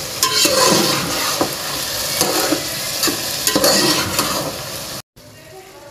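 Half-boiled rice being stirred with a ladle in a metal pot of boiling sugar syrup, the syrup sizzling under repeated scrapes and knocks of the ladle against the pot. The sound cuts off abruptly about five seconds in.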